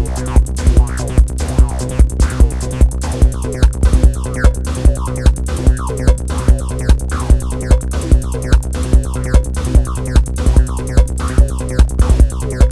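Electronic music played on Moog Sound Studio synthesizers and a Roland TR-6S drum machine: a steady machine kick beat under a sequenced synth bass line, with short synth notes whose tone falls quickly.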